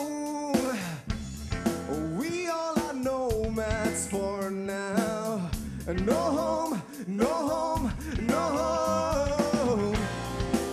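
Live rock band playing: a male vocalist sings a melodic line over electric guitars, bass guitar and a drum kit.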